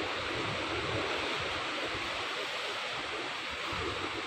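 Ocean surf washing against rocks, a steady rush of water, with wind gusting on the microphone in low rumbles.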